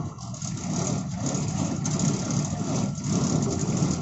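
Road roller's engine running steadily.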